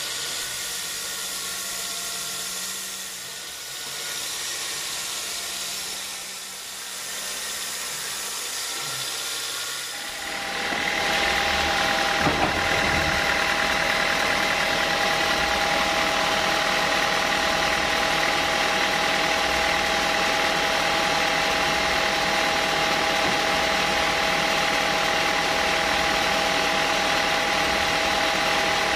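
Band sawmill machinery running steadily. About ten seconds in the sound turns louder, with a steady high whine that holds to the end, and a brief knock a couple of seconds later.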